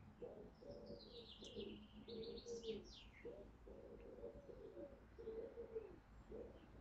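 Faint cooing of doves, repeated over and over, with a small songbird chirping high above them from about half a second to three seconds in.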